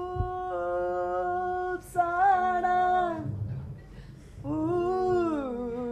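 A single voice singing a slow melody in three long held phrases, the last one sliding down in pitch at its end.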